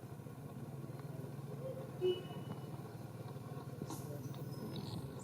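A steady low engine hum, like a vehicle idling, with a short louder blip about two seconds in.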